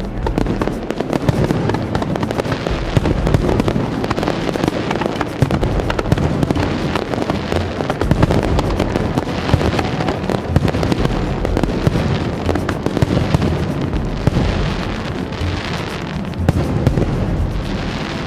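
Aerial fireworks bursting in a dense, continuous barrage, with many sharp cracks and pops over a rolling low rumble of booms.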